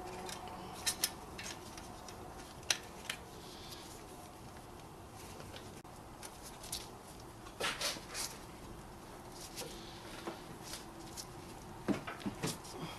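Scattered light metallic clicks and clinks of brake parts being handled: pads and caliper hardware being seated and moved at the wheel, with small clusters of clicks about a second in, around eight seconds and near the end.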